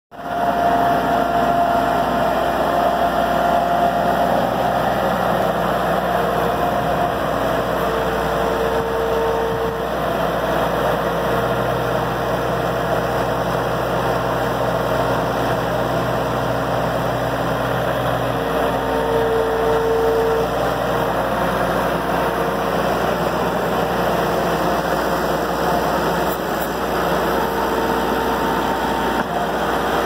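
Bobcat 753 skid-steer loader's diesel engine running steadily, with a steady whine coming in and dropping out several times as the hydraulics work the loader arms and bucket.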